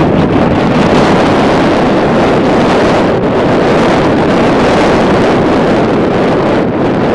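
Wind blowing across the camera's microphone: a loud, steady rushing noise with small rises and falls.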